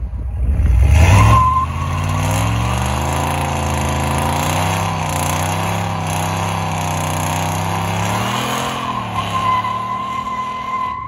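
Car engine revving, then running on with a wavering, uneven note that rises and falls once near the end, with a thin high-pitched tone about a second in and again near the end.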